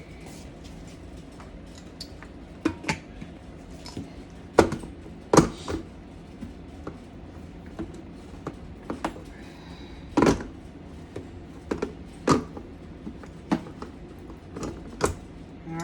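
Kitchen utensils and containers being handled: irregular sharp clicks and knocks, the loudest around five seconds in.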